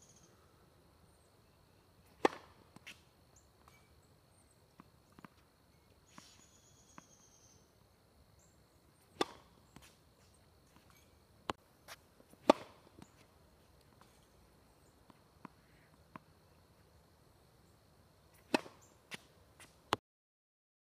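Tennis serve practice on a hard court: four loud, sharp racket-on-ball hits several seconds apart, with lighter taps of the ball bouncing between them.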